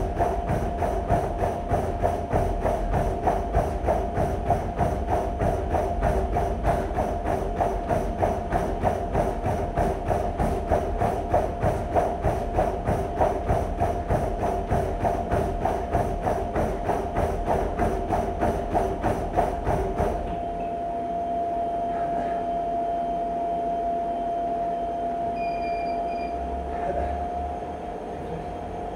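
Rapid, even footfalls striking a treadmill belt at sprint pace over the steady whine of the treadmill motor. About twenty seconds in, the footfalls stop suddenly and the motor whine carries on alone as the belt keeps running.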